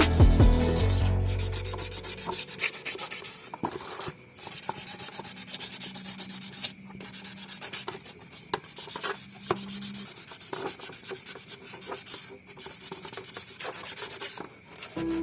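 Sanding: rapid, irregular rubbing strokes of abrasive paper on a scooter part, coming in as music fades over the first two seconds and stopping just before the end.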